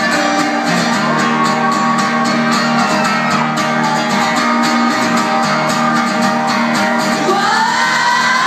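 Indie rock band playing live: strummed guitar chords under sung vocals, with the voice rising in pitch near the end, heard from the audience in a club.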